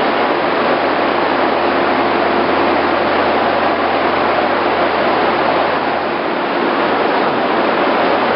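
POREBA TCG 125 heavy-duty lathe running under power, a loud, steady mechanical noise with a faint constant hum through it.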